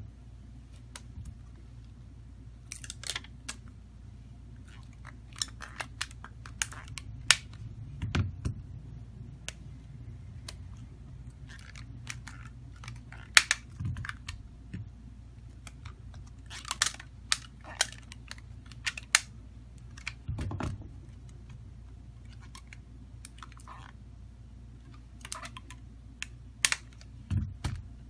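Irregular clicks, taps and a few soft thumps of a smartphone being handled on a silicone repair mat as rubber bands are stretched around it to clamp the newly fitted screen, over a steady low hum.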